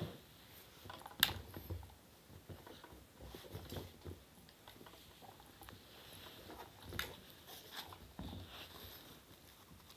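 Faint small knocks and rustles of a toddler handling a blood-pressure monitor's rubber tubing, cuff and stethoscope, with two sharper clicks, about a second in and again about seven seconds in.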